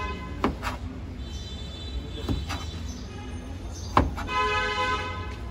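Kitchen knife knocking on a plastic cutting board while a papaya is peeled and cut: a few sharp taps, the loudest about four seconds in, over a steady low street hum. A held pitched tone with many overtones sounds for about a second near the end.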